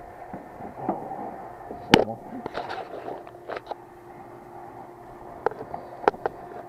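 Handling noise from inside an outdoor heat pump's sheet-metal cabinet as an insulation blanket is fitted around the compressor: rustling and scraping, a sharp knock on the metal about two seconds in, and a few lighter clicks near the end.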